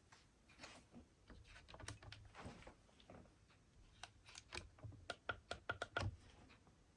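Faint, light clicks and taps of small plastic and metal parts being handled while working on a 1/18-scale RC rock crawler, quickening into a run of sharper clicks around four to six seconds in.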